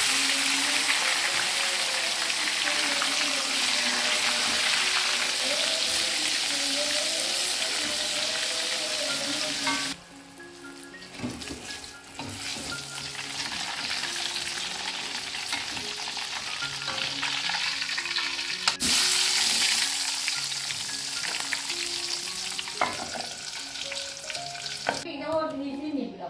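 Chunks of vegetable sizzling in hot oil in a wok, with metal spatula and strainer scraping against the pan. The sizzle is loud at first, drops suddenly about ten seconds in, rises again and cuts off shortly before the end.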